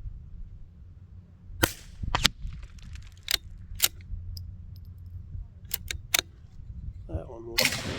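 A series of short, sharp clicks, then near the end a single .22 rimfire rifle shot with a fading echo.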